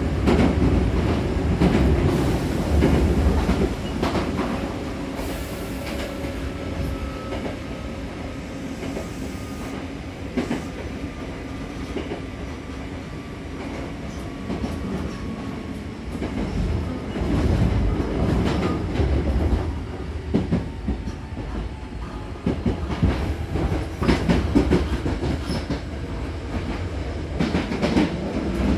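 Hankyu 6000-series electric train heard from inside the car by the doors, running with a steady rumble and a faint whine that slowly falls in pitch. Many short clicks of the wheels over rail joints come through, thickest in the second half.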